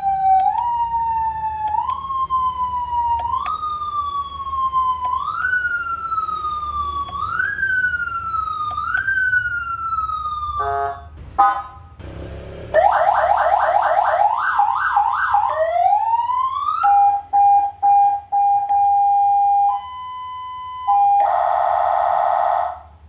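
Electronic ambulance siren module switched through its tones one after another: a wail that rises in repeated steps for about ten seconds, a short burst of rapid pulses, a fast warble, a rising sweep, steady beeping tones, and a buzzing horn-like blast near the end that cuts off.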